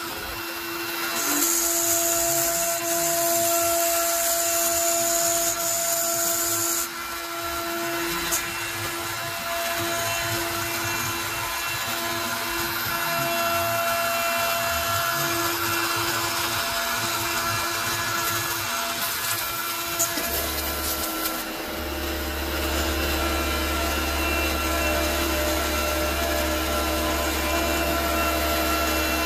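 Onefinity CNC's router spindle running at 18,000 rpm, a single-flute up-cut spiral bit milling 3/8-inch cast acrylic. It makes a steady whine with cutting hiss, and a low hum joins about two-thirds of the way in.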